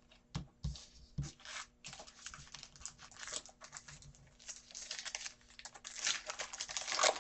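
Football trading cards being handled and slid past one another while going through a pack: irregular rustling and scraping with small clicks, loudest near the end.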